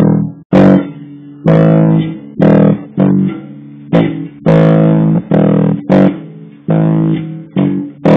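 Electric bass guitar played fingerstyle, unaccompanied: a slow line of about a dozen single plucked notes, each ringing out and fading before the next.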